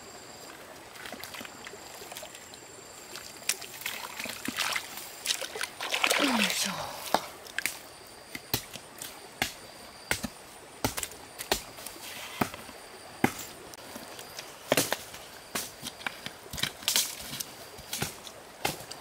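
Digging into a wet, muddy stream bank with a small hoe: a string of sharp knocks as the blade chops into mud, with wet slopping and splashing in shallow stream water.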